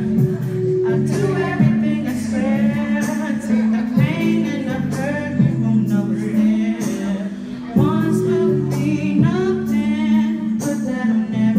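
Karaoke singing: a voice sings over a backing track with steady held bass notes.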